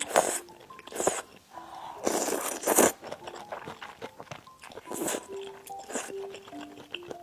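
Close-miked eating sounds: a handful of noisy bites and mouth sounds, the longest lasting about a second midway, over soft background music of short held notes.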